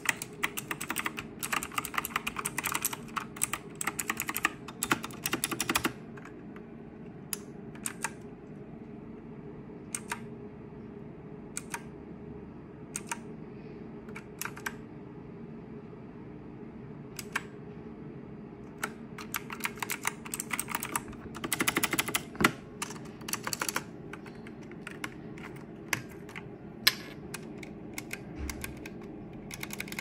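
HP GK320 mechanical keyboard being typed on: a fast run of key clicks for the first six seconds, then single key presses a second or two apart. A second burst of fast typing comes about two-thirds of the way in, followed by scattered single presses.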